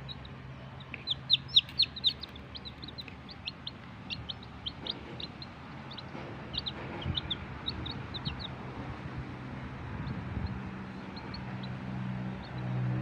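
Baby chickens (chicks) peeping: short, high, downward-slurred cheeps. They are loudest and quickest in a burst about a second in, then scattered and thinning toward the end.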